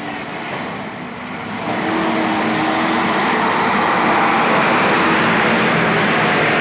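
Heavy road vehicle passing close, its engine and road noise growing louder about two seconds in and then holding steady. No air horn sounds.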